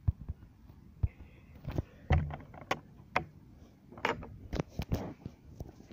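Handling noise from a phone being moved around while it records: irregular clicks, taps and knocks, with a stronger dull thump about two seconds in and faint rustling between.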